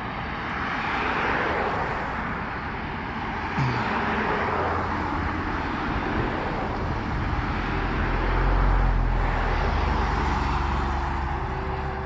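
A motor vehicle passing. A broad rushing noise and a low engine rumble swell to a peak about eight or nine seconds in, then ease off.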